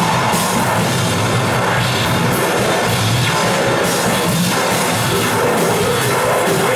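Rock band playing loud live on stage: electric guitar over a drum kit, in a heavy, dense wall of sound.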